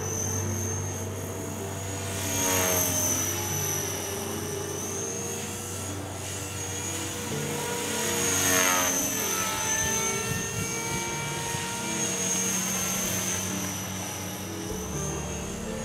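Electric Blade 450 3D RC helicopter in aerobatic flight: a high motor-and-rotor whine whose pitch wavers up and down, swelling louder twice as it swoops past. Background music plays underneath.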